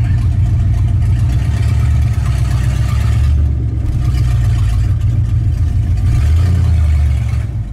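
Old Ford pickup's carbureted engine running with no exhaust system fitted, loud and unmuffled; its note shifts near the end.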